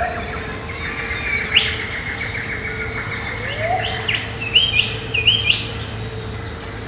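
Birds chirping and calling in short rising notes, with a quick run of louder, high-pitched chirps about four to five seconds in, over a steady low hum.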